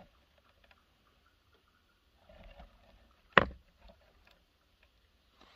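Handling noise: scattered faint clicks and rustles, then one sharp knock about three and a half seconds in, the loudest sound.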